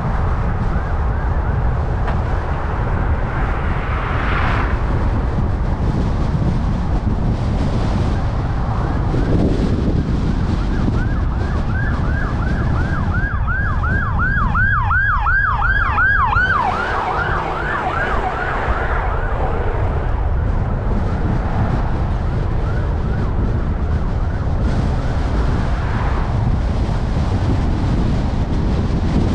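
Emergency vehicle siren in a fast yelp, each wail rising and falling about three times a second. It comes in near the middle, grows loud, then fades a few seconds later. Underneath is the steady low road rumble of the car being driven.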